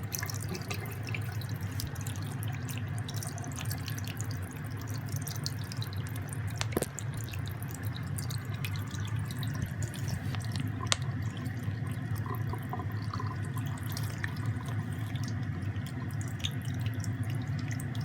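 Steady low background hum with scattered light clicks and taps of small objects being handled, and a sharper knock about 7 seconds in and another about 11 seconds in.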